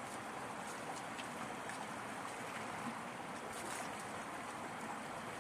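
Shallow river flowing over rocks, a steady even hiss of running water.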